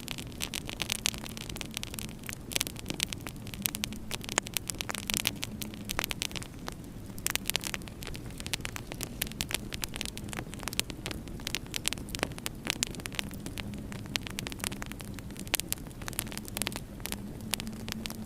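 Wood fire crackling in a fireplace, with frequent sharp pops over a steady low hum.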